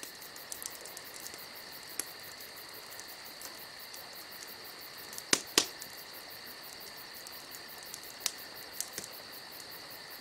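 Crickets chirping steadily in a silence, the comic cue for a line that gets no answer, with two sharp clicks about five and a half seconds in.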